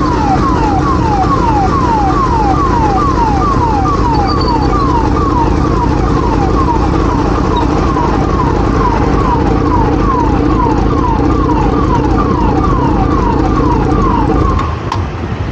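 Police SUV siren sounding in quick, repeated falling sweeps, about two to three a second, over steady road noise from a moving motorcycle. The siren cuts off near the end.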